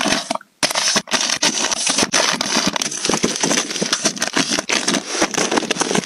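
Plastic-wrapped packs of kitchen paper towels crinkling and rustling as they are handled, stacked and pushed onto a shelf: a dense run of crackles that starts after a brief pause about half a second in.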